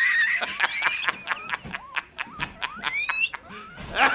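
Guinea pig squealing: a high held squeal at the start, then a rapid string of short squeaks, about six a second, several rising sharply in pitch, in a laugh-like rhythm.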